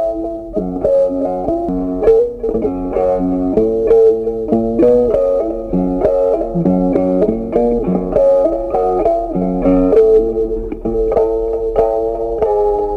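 Background music: a plucked-string tune with changing notes over a lower line.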